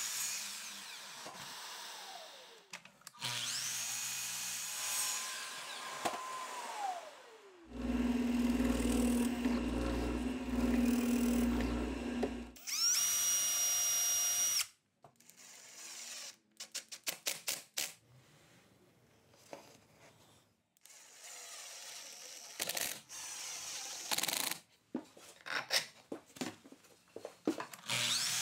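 A sequence of woodshop power tools. A miter saw cuts sapele hardwood and its blade winds down, twice in the first eight seconds. A cordless drill then runs steadily for about five seconds while boring pilot holes, followed by a brief high whine and a run of short clicks and quick spurts as screws are driven.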